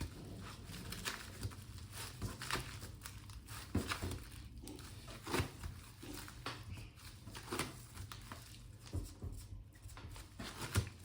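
Soft, irregular crinkling and rustling of a plastic-wrapped bamboo sushi mat as an inside-out sushi roll is rolled and pressed by hand, with light knocks.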